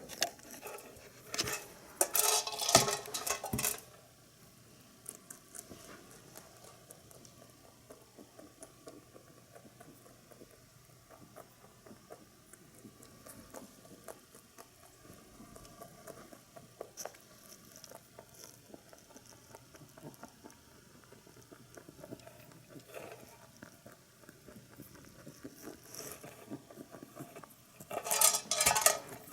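A rabbit noses and tips a pepper shaker filled with hay pellets, so the pellets rattle and clatter in it in two loud bursts, one a couple of seconds in and one near the end. In between are faint, irregular clicks of the rabbit picking out and crunching the pellets.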